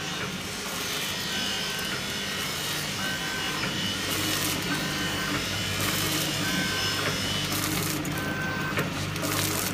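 Vertical form-fill-seal sachet packing machine running: a steady motor hum, a short high tone recurring every second or two, and a few brief hissing bursts.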